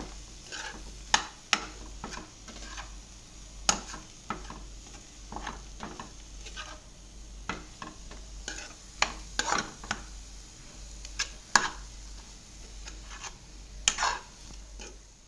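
Metal spoon stirring and scraping spiced mashed-potato stuffing in a kadhai on the heat, with irregular sharp clinks against the pan over a faint sizzle.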